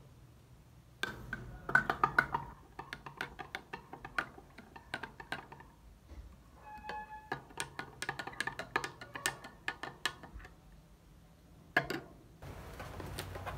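A metal spoon stirring coffee in a glass tumbler, clinking rapidly against the glass in quick runs, with a brief ringing note about seven seconds in and a last couple of clinks near the end.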